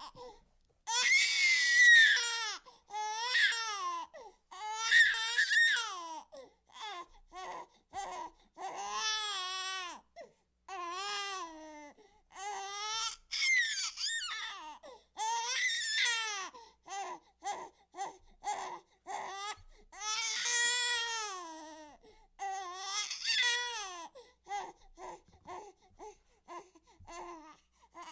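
An animated baby character crying: long, wavering wails broken by runs of short, choppy sobs, with brief catches of breath between bouts.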